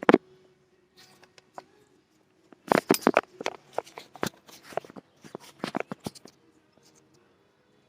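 Handling noise: a string of clicks, knocks and rustles as objects are picked up, set down and moved about, most of them from about three to six seconds in.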